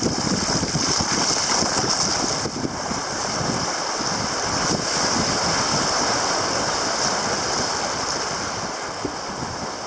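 Choppy, broken water rushing and splashing against a sea kayak's hull as it is paddled through rough water, close to the microphone, with some wind on the microphone. It eases off slightly near the end.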